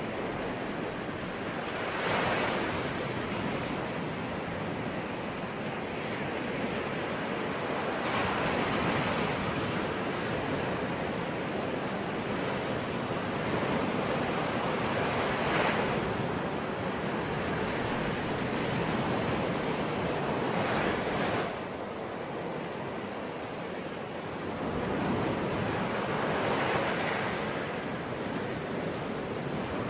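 Sea waves breaking and washing onto a shore, a steady surf with a louder wash every five or six seconds. A light wind is mixed in.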